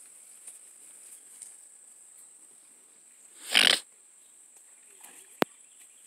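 A cow gives one short, loud snort, a forceful breath out, about halfway through, followed near the end by a single sharp click. A steady high-pitched insect drone sits underneath.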